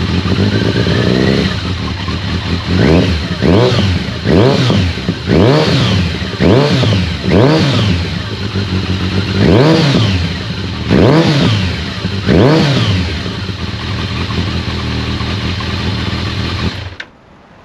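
2002 Kawasaki ZRX1200R's inline-four engine through a newly fitted ART Pro Series II slip-on exhaust, idling and then revved in about nine quick throttle blips, each rising and dropping back to idle. It then idles steadily and cuts off suddenly near the end.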